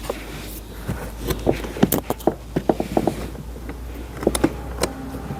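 Irregular clicks, taps and knocks of plastic parts being handled while a car's interior door panel is worked free and its door handle cable unhooked.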